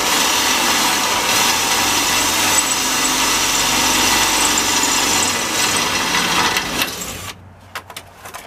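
Handheld power tool running steadily against the old car's steel body panel, loud and even, then stopping abruptly about seven seconds in, followed by a few light clicks and knocks.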